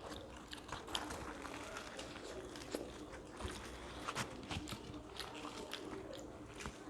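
People eating with their hands, chewing and tearing luchi, with many small sharp clicks and smacks of mouths and fingers, close to the microphone.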